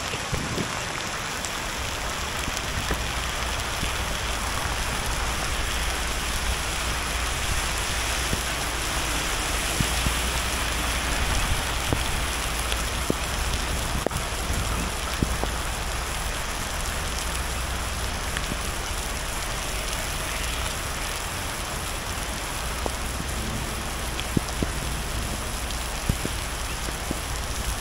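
Heavy rain mixed with hail pouring down onto a wet road: a steady dense hiss with scattered sharp ticks of hailstones landing, and a low steady rumble underneath.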